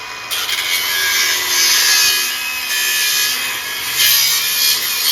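Angle grinder cutting into a small ATV's metal frame: a loud, steady, high-pitched grinding that turns harsher and louder a fraction of a second in as the wheel bites into the metal.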